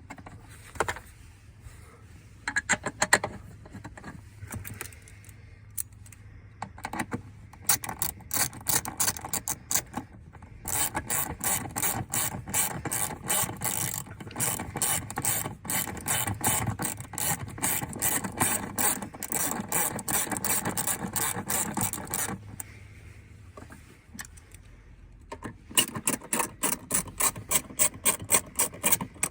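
Hand ratchet wrench clicking as bolts are wound in, with scattered clicks at first, then a long run of rapid clicks, a pause, and a second run near the end.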